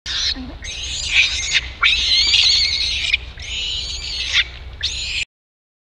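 Infant long-tailed macaque screaming in distress: five shrill, wavering screams in quick succession while its mother pins it to the ground, the last one cut off suddenly.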